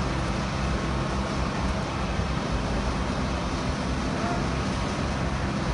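Steady low drone of construction machinery engines running, with an even rushing noise over it.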